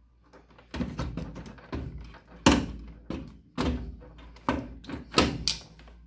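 Irregular knocks and clunks of a plastic washing-machine water inlet valve and its hose being pulled and knocked against the machine's frame as the valve is worked free, the loudest about two and a half seconds in.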